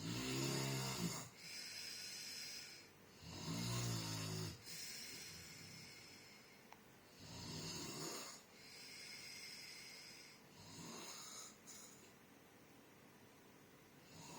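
Loud, noisy snoring: four rattling snores about three and a half seconds apart, each followed by a hissing out-breath. The first two snores are the strongest, and the breathing quiets near the end.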